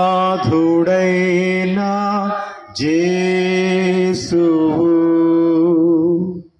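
A single voice chanting a slow sung prayer in long, steady held notes, in four phrases with brief breaks, stopping shortly before the end.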